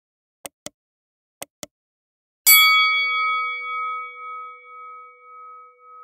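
Subscribe-button sound effect: two quick double mouse clicks, then a notification bell ding that sounds suddenly about two and a half seconds in and rings on, slowly fading.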